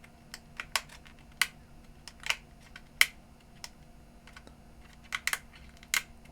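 Small plastic push buttons on a Sanyo CDP-190 portable CD player being pressed over and over, giving irregular sharp clicks. The buttons are being worked because the back button was a little sticky or reluctant.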